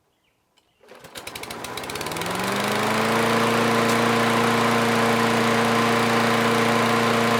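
Toro walk-behind lawn mower's small engine starting about a second in. Its firing speeds up and rises in pitch for about two seconds, then settles into a steady, even run on its replacement carburetor.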